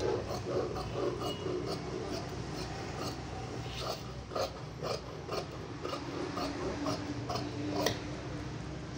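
Tailor's scissors cutting through cotton lining cloth: a steady run of snips, about two a second.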